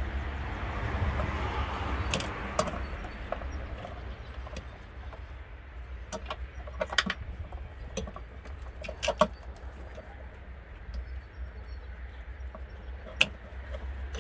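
Hands unplugging plastic ECU wiring connectors in a car's engine bay: scattered sharp plastic clicks and rattles, the loudest about nine and thirteen seconds in, over a steady low rumble.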